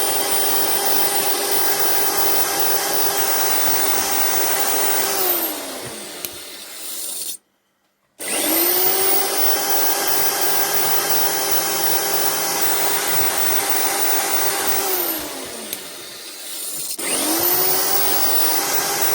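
Cheap electric drill fitted with a wire brush attachment, spinning up, running steadily for about five seconds and winding down. After a short silent gap it runs again for about seven seconds, winds down and starts up once more near the end. The drill keeps stopping.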